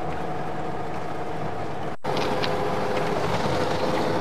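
Steady engine and road noise of a moving motor vehicle, heard from inside it. There is a brief break about two seconds in, after which the hum is a little louder and carries a clearer steady tone.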